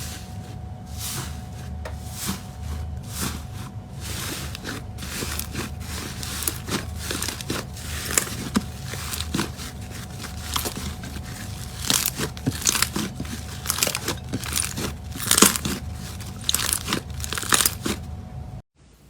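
Slime worked by hand, giving many small crunches and crackles that come thicker and louder in the second half.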